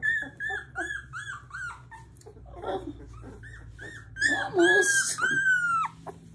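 Seventeen-day-old black Labrador retriever puppies crying: a run of short high-pitched squeaks, about three a second, then more cries mixed with some lower-pitched ones, and one long falling whine near the end.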